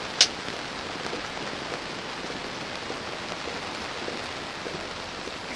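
Rain falling steadily on the fabric roof of an Outwell inflatable tent, heard from inside: an even hiss with scattered faint drop ticks. A single sharp click about a quarter second in.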